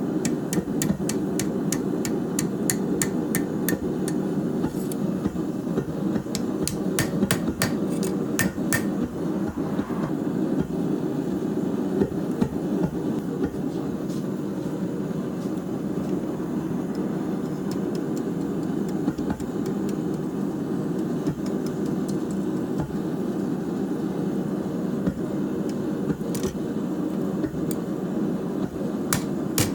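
Hand hammer striking hot steel on an anvil while forging a corkscrew, a run of sharp ringing blows about two to three a second over the first nine seconds, then a single blow later and hammering starting again at the very end. A steady low rushing noise runs underneath throughout.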